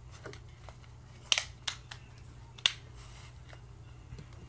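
Beats on-ear headphones being handled and put on: a few sharp clicks and knocks, the loudest about a second and a half in and another just past two and a half seconds, over a low steady hum.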